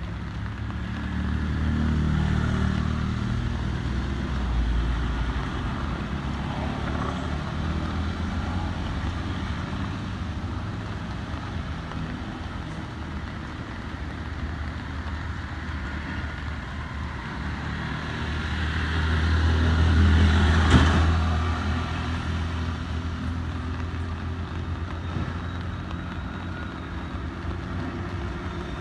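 Motor vehicles passing on a road: a low engine rumble that swells and fades, loudest about twenty seconds in as one passes close by.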